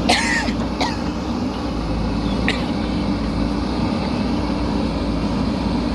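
JCB 3DX backhoe loader's diesel engine running steadily. A brief squeal sounds right at the start, and sharp clicks come about a second in and again about two and a half seconds in.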